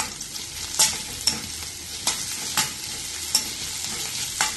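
A spatula stirring chopped onion, green chilli and tomato in a steel kadai, scraping and knocking against the pan about once a second, over a steady sizzle of the vegetables frying in oil.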